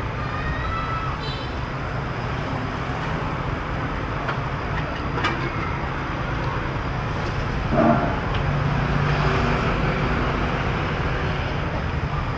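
Steady street traffic of cars and motorbikes passing, with a brief louder sound about eight seconds in.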